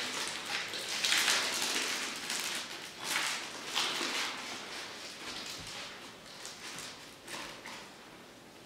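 Clear plastic crinkling and rustling in gloved hands, in irregular swells that are loudest about a second in and again around three to four seconds in, then die down toward the end.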